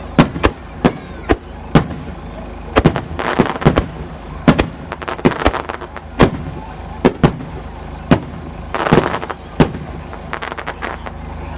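Fireworks display: aerial shells bursting one after another in an irregular string of sharp bangs, sometimes two or three a second. There are bouts of crackling about a third of the way in and again near the three-quarter mark.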